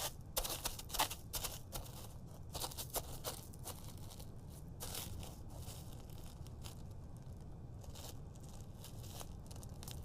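Irregular crunching and rustling crackles, densest in the first few seconds and thinning out later, over a low steady hiss.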